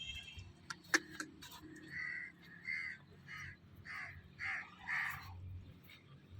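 A run of about six harsh, rasping animal calls, evenly spaced a little over half a second apart, preceded by a single sharp click about a second in.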